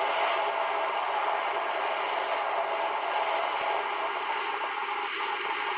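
Steady rushing hiss of a flame heating a steel knife blade to hardening temperature.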